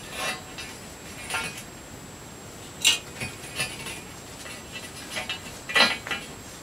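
Short scrapes and clinks of hand work on a metal pipe being set and fixed in place on the floor as a guide rail for pouring the concrete floor. Half a dozen separate knocks and scrapes, the sharpest about three seconds in and again near six seconds.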